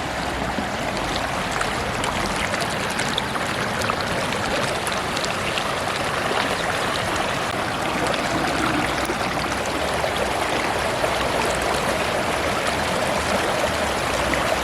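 River water flowing, a steady rush of water.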